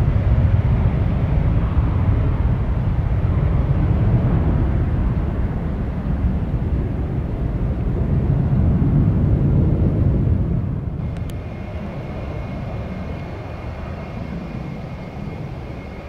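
Jet airliner engines at high power, a deep, loud rumble. About eleven seconds in it drops off abruptly to a quieter jet sound with a steady high whine.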